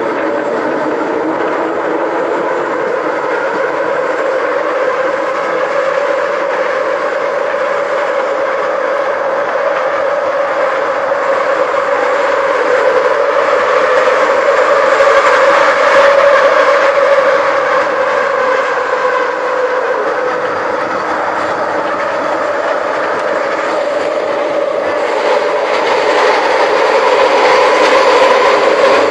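Scarborough RT ICTS Mark I train running on its track: a steady whine from its linear induction motors over wheel and rail noise. It swells louder about halfway through and again near the end.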